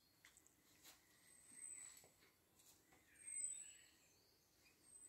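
A bird repeating a single short, high, thin note about every second and a half, three times, over faint, near-silent outdoor background with a few soft ticks.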